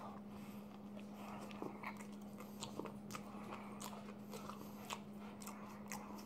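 Biting into and chewing a fast-food hamburger: faint, irregular mouth and bun clicks, over a steady low hum.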